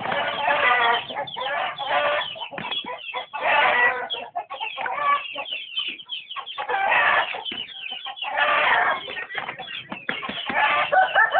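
Chickens squawking and clucking loudly in repeated bursts of about a second each, as birds squabbling with one another.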